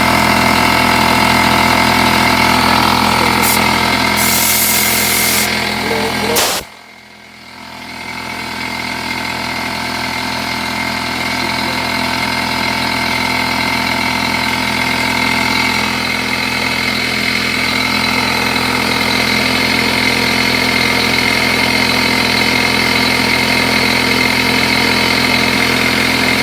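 Porter-Cable air compressor running steadily to recharge its tank after air has been drawn off. A short hiss of air comes about four seconds in; about six and a half seconds in the sound drops away suddenly, then rises back up over a second or two and runs steadily on.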